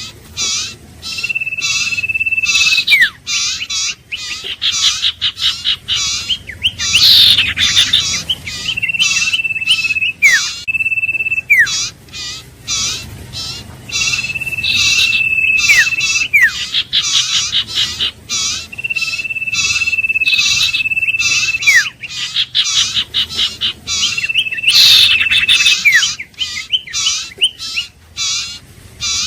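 Iora singing: long level whistles, each ending in a quick downward slur, come about every five seconds over a dense run of rapid chirping notes.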